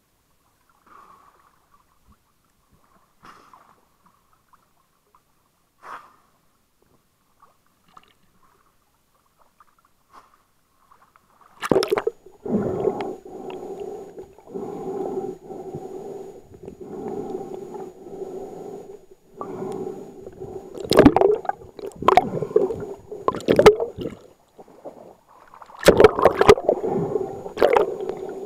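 Sea sound picked up through a waterproof action camera's housing as it goes underwater. It is muffled and nearly quiet at first; from about twelve seconds in comes a steady low underwater hum that comes and goes, with gurgling and several sharp knocks on the housing.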